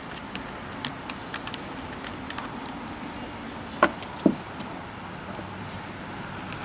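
Siberian husky gnawing a raw cow marrow bone: scattered sharp clicks and scrapes of teeth on bone, with two louder knocks a little past halfway as the bone is shifted.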